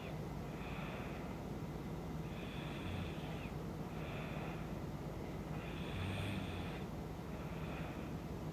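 A woman snoring in her sleep, with slow, even breaths about every three and a half seconds. Each breath is heard as a longer sound followed by a shorter one, three breaths in all.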